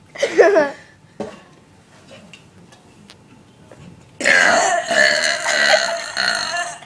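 A person burping: one long, loud, drawn-out burp starting about four seconds in and lasting nearly three seconds, after a short voice sound at the start. It is the longest one the burper ever did.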